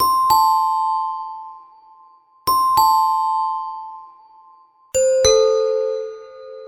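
Two-tone doorbell chime, ding-dong: a higher note then a lower one, each ringing out, played twice. About five seconds in, a lower-pitched ding-dong chime follows.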